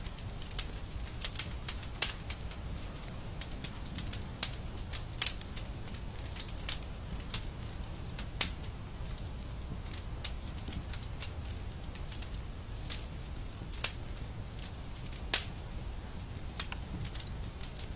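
Wood fire crackling: irregular sharp pops and snaps, a few louder ones scattered through, over a steady low rumble.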